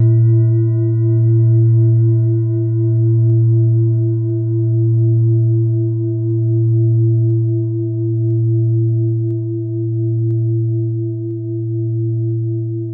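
A sustained ringing drone that comes in suddenly at the start: a deep hum with several steady higher ringing tones above it, swelling and fading slowly about every second and a half.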